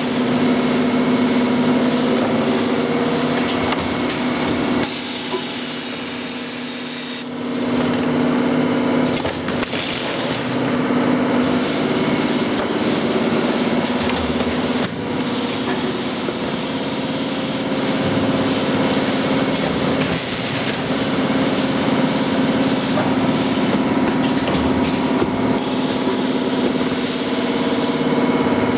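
5 kg granulated-sugar packaging machine running with a steady hum, broken three times by a hiss lasting about two seconds, roughly ten seconds apart.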